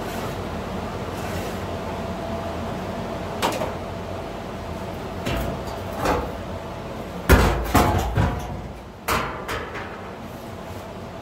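A sheet-steel replacement floor pan handled and lifted off a car's floor: a few separate metallic knocks, then a clattering burst of knocks about seven seconds in, the loudest sound, and a couple more knocks after it, over a steady background hiss.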